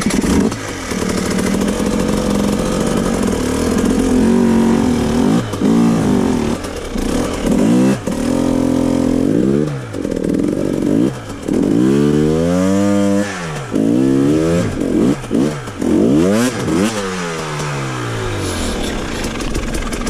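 Dirt bike engine revved in repeated throttle bursts, its pitch rising and falling again and again as the bike is worked over rocks on a stalled climb.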